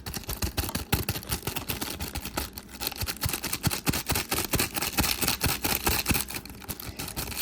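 Dense, rapid, irregular crackling clicks from a toy capsule fizzing as it dissolves in a container of water.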